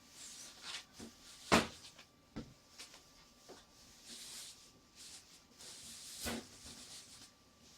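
Plastic wrapping being pulled off a new gas water heater: soft crinkling and rustling with a few knocks as the unit is handled, the loudest knock about one and a half seconds in.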